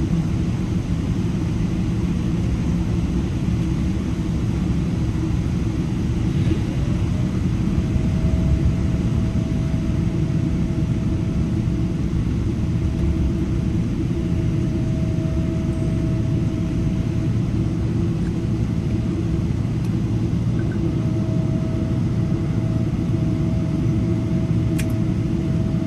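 Steady low rumble inside a Boeing 787 cabin while the aircraft is on the ground after landing. A faint steady higher tone comes in about seven seconds in, dropping out briefly and returning.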